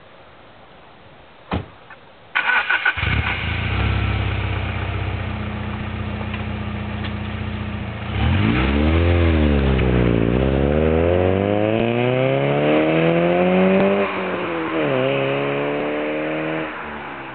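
1998 Alfa Romeo 156 2.0 Twin Spark 16-valve four-cylinder engine through a loud Whitehooker aftermarket exhaust. After a short click it starts about two seconds in and idles. From about eight seconds in the revs rise and fall, then climb steadily twice, each climb ending in a sudden drop, before settling to a quieter run near the end.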